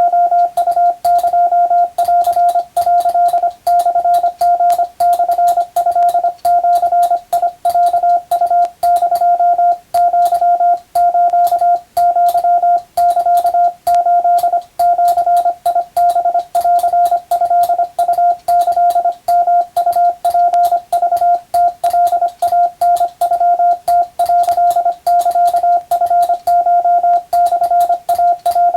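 Morse code sent as a single steady tone, keyed on and off in quick dots and dashes without pause, with a faint click at the keying.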